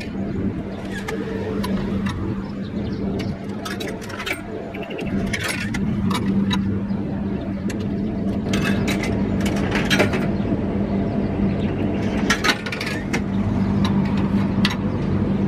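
Coins clicking and clinking in a drinks vending machine: fed into the slot, then dropping back into the coin return when the reject button is pressed, over and over. Under them runs a steady low hum.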